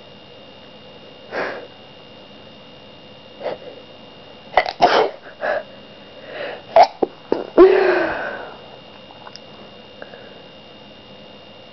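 A person sniffing twice, then a run of short, sharp breaths and small sneezes building up to one loud voiced sneeze about eight seconds in.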